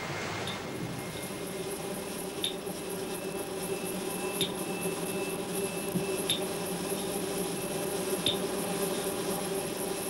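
Seismic reflection profiling equipment: a short, sharp tick repeating evenly about every two seconds over a steady electrical hum and a faint high tone, each tick marking one sound pulse of the survey.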